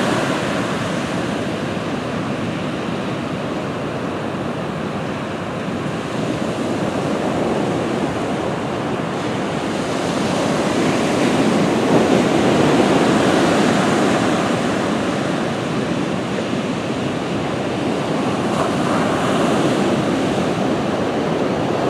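Atlantic surf breaking and washing up a sandy beach: a steady rushing roar that swells louder for a few seconds around the middle, with wind buffeting the microphone.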